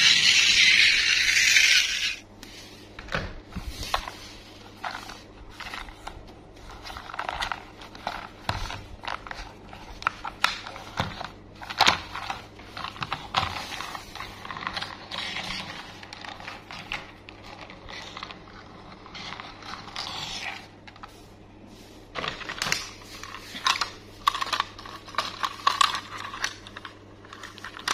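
Hard plastic toy trains and cars being handled on a tabletop: scattered clicks, knocks and scrapes of plastic, over a faint steady low hum. A loud hiss at the start stops about two seconds in.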